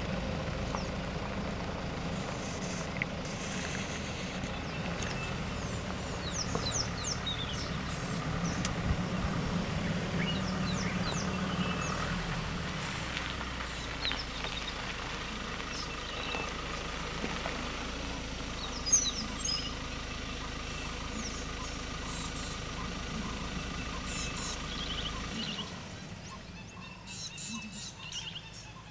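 A vehicle engine idles with a steady low rumble while small birds chirp and whistle over it. One sharp click comes about 19 seconds in, and the engine rumble stops a few seconds before the end, leaving only the bird calls.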